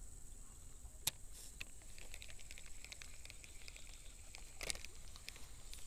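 Shimano Sienna 1000 FG spinning reel and line being handled by hand: a sharp click about a second in, a run of small ticks after it, and another short click near the end.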